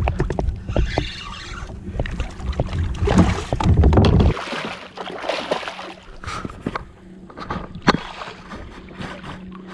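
Water sloshing and splashing around a fishing kayak while a hooked redfish is fought at the side, with scattered small clicks and knocks. Wind buffets the microphone with a heavy rumble that cuts off suddenly about four seconds in, leaving quieter water and handling noise and one sharp knock near the end.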